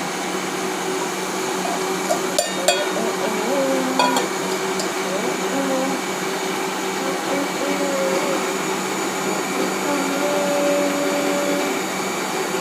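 Electric kitchen blender running steadily, blending a watery mix of rice and kencur, with a steady motor hum. A few sharp clicks come about two and a half and four seconds in.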